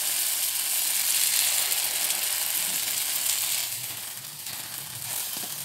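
Tapioca paniyaram batter sizzling in hot oil in the cups of a paniyaram pan as spoonfuls are poured in. The sizzle eases somewhat after about three and a half seconds.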